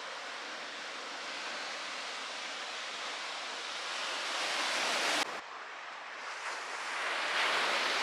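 Ocean surf washing in steadily, swelling to a louder break about five seconds in, cutting off suddenly, then building again toward the end.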